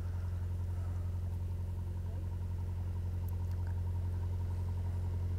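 A steady low mechanical hum, like an engine idling, holding one even pitch without rising or falling.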